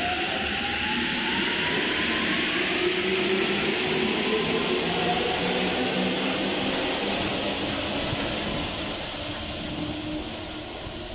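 MP14 rubber-tyred metro train accelerating out of the station past the platform end. Its traction motors whine with a rising pitch over a steady loud rush of tyres and running gear, which fades near the end as the train pulls away into the tunnel.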